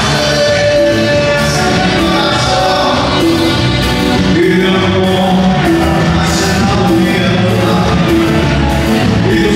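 A band playing amplified live music with a singer, over a steady beat.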